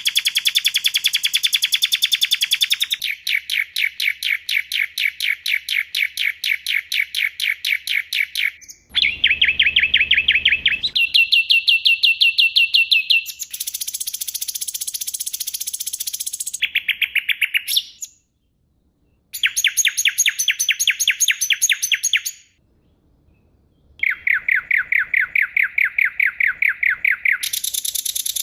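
Bird-song training ('masteran') track of sharp, rapid-fire chirping trills, each a fast run of evenly repeated notes. It jumps abruptly from one trill to the next at a different pitch, with two short silent gaps past the middle.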